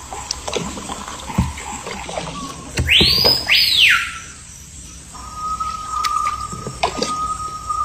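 Rainforest ambience with scattered clicks. About three seconds in, two loud whistled calls each sweep up and back down, one right after the other. From about five seconds a steady high note holds without a break.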